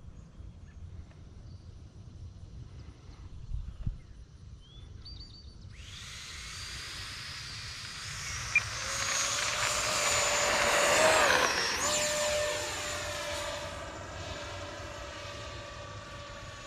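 Electric ducted fan of an E-flite F-16 RC jet spooling up for takeoff: a high whine comes in suddenly about six seconds in and grows loudest a few seconds later. It dips briefly in pitch, then holds steady and fades as the jet climbs away. A single sharp click sounds about eight and a half seconds in.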